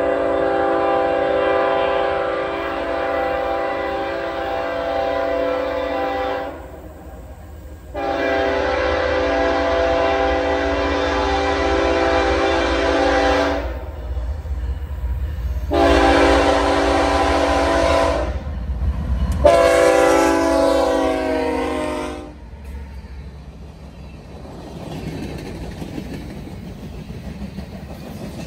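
BNSF freight locomotive's air horn sounding a multi-note chord in the grade-crossing pattern: long, long, short, long. Under and after it, the train rumbles past with wheels clicking over the rail joints.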